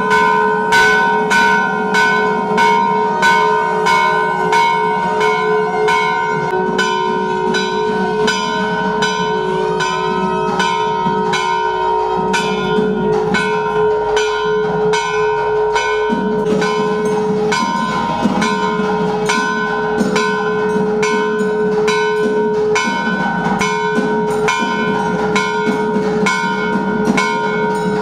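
Temple bells ringing with fast, evenly repeated strikes, about two to three a second, their tones running together into a continuous ring.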